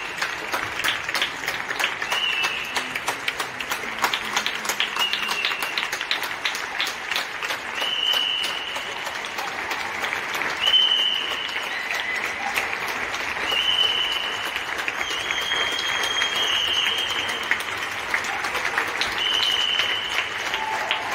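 Many people clapping from the balconies of surrounding apartment blocks: dense, steady applause. A high steady tone about a second long sounds over it every couple of seconds.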